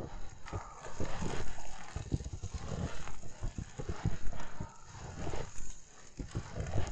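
Footsteps crunching through fresh snow at an even walking pace, a short grainy crunch with each step.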